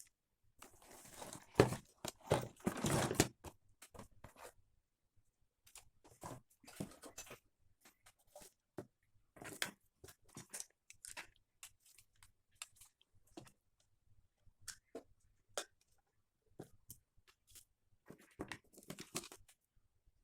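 Irregular crunching, crinkling and clicking handling noises, denser in the first few seconds and again near the end.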